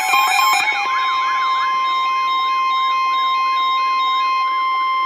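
NOAA Weather Radio's steady 1050 Hz attention tone sounding ahead of a marine warning, with a warbling siren that rises and falls about three times a second and fades out over the first few seconds.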